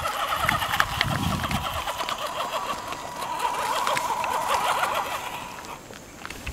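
Axial SCX10 RC rock crawler's electric motor and gear train whining steadily as it crawls over rock, with a few sharp clicks early on. The whine fades out just before the end.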